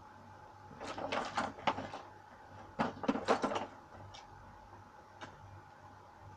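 Household objects being handled: two short bursts of clattering and knocking, about a second in and again about three seconds in, then a single click, over a faint steady hum.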